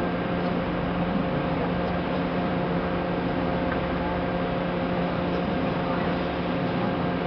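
Whale-watching boat's engines running steadily: an even hum with a few fixed tones over a rushing noise.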